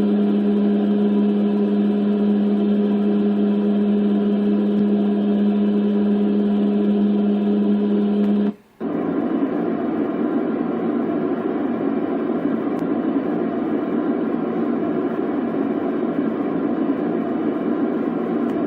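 Dreamegg D3 white noise machine playing a steady noise with a low hum running through it, cut off about eight and a half seconds in. After a brief silence it switches to a different, deeper steady rushing noise.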